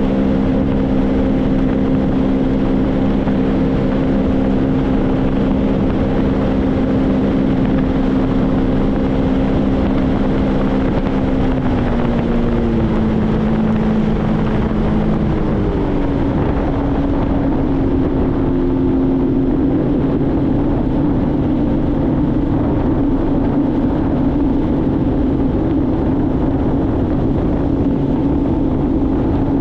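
Sea-Doo GTX 170 personal watercraft's three-cylinder Rotax engine running steadily under way, over a steady rushing noise. Its note drops in pitch about twelve seconds in and drops again a few seconds later as engine speed comes down, then runs on lower and rougher.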